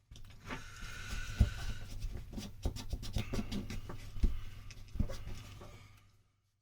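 Irregular clicks, knocks and scratches of small parts and tools being handled on a workbench, over a steady low hum; it all stops about six seconds in.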